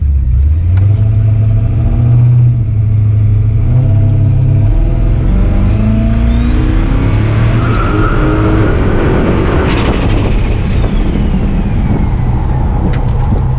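Turbocharged V8 Dodge pickup running, then revving up with a turbo whine that rises to a high steady whistle for about two seconds and falls away as the throttle comes off.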